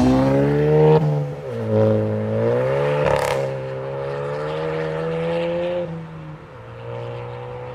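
Suzuki Swift with an aftermarket Theofilos exhaust accelerating away hard through the gears: the exhaust note climbs, drops at each gear change, and a short sharp crack comes about three seconds in. The note then holds steadier and fades as the car pulls away.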